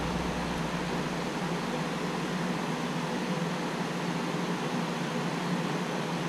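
Steady machine hum with a constant hiss, unchanging throughout and with no knocks or impacts.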